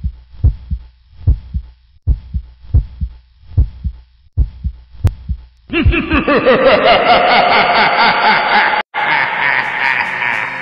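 Heartbeat sound effect: low double thumps, a bit more than one pair a second. About halfway through, a loud, wavering sound with many gliding pitches takes over, with a brief dropout near the end.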